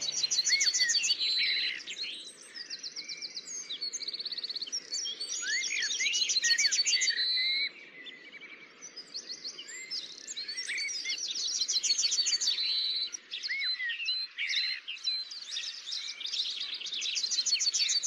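Wild songbirds singing together: rapid high trills and chirps overlapping with short upward-sweeping whistles, dropping off briefly about halfway through before picking up again.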